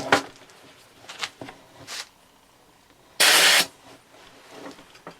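A short burst of compressed air, about half a second long, hissing into a lawn tractor tire's inner tube as it is inflated, after a few light knocks.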